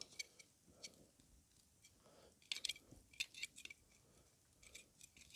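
Faint, scattered crackles and pops from a campfire with sausages cooking over it, some in quick little clusters, against near silence.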